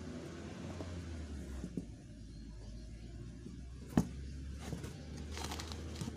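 Handling noise of canvas sneakers being turned over on cardboard, with one sharp tap about four seconds in and rustling near the end, over a low steady hum.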